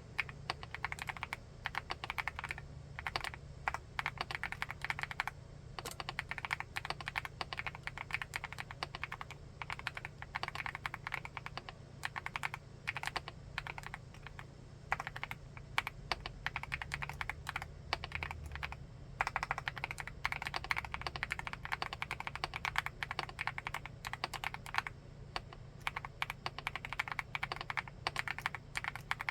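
Fast, continuous typing on a 75%-layout full-aluminium keyboard: a dense run of key clacks with a few brief pauses.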